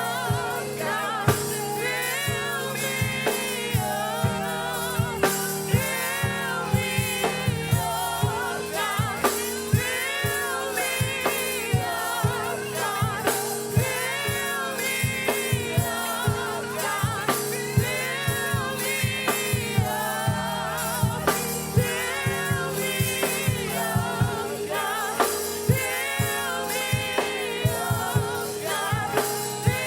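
Live gospel music: voices singing with vibrato over a drum kit keeping a steady beat and a held keyboard or organ chord.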